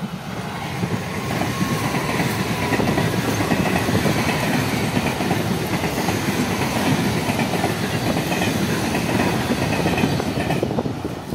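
Mumbai ICF-built EMU local train passing close by at speed, its wheels running over the track. The sound builds as the train arrives, holds steady while the coaches go by, and falls away near the end as the last coaches pass.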